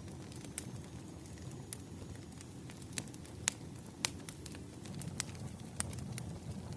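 Firewood burning: a steady low rumble of flames with irregular sharp crackles and pops from the wood.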